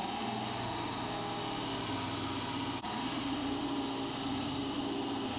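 Electric grinder running, grinding down the steel of a rebar knife blank, steady with a pitch that shifts as the steel is pressed on, and a brief break about three seconds in.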